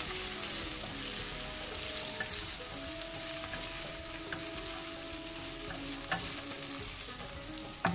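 Fried fish pieces, bell pepper and onion sizzling in hot oil in a non-stick wok on high flame while a spatula stirs and tosses them, with a few light spatula taps.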